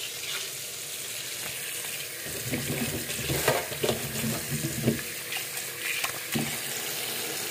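Tap water running steadily into a sink as freshly picked plums are washed by hand, with irregular knocks and clatters from the fruit being handled about two to five seconds in.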